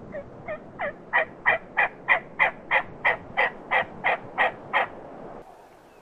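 A series of about fifteen turkey yelps, about three a second, starting soft and getting loud within the first second, then holding steady until they stop.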